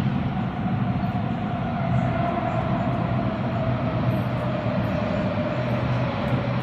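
Athens Metro train approaching through the tunnel into an underground station: a steady rumble with a whine that slowly falls in pitch.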